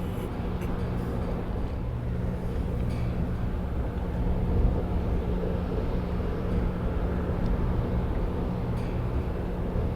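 Ferry's diesel engines droning steadily as the ship comes in to berth: a constant low hum with several steady tones over a low rumble.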